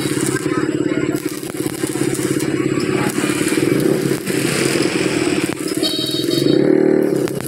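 Stick (arc) welding on a broken steel truck rear axle: the arc crackles and sizzles steadily over a low hum. A brief, louder buzz comes near the end.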